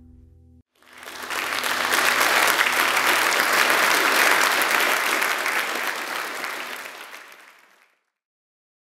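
The last held note of the song dies away, and about a second in a large audience breaks into applause, which swells, holds and then fades out near the end.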